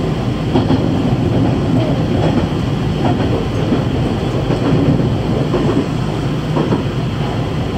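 JR Kyushu train running on rails, heard from inside the carriage: a steady rumble with occasional faint clacks of the wheels over the rails.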